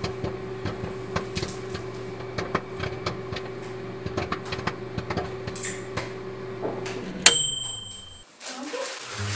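Microwave oven running with a steady hum, which stops about seven seconds in with a single ringing ding. Rustling and clicks of things being handled in a bag run alongside.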